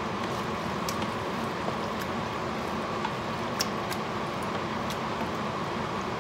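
Wooden spoon stirring thick tomato meat sauce in a stainless steel stockpot, with a few light clicks of the spoon against the pot, over a steady background hum.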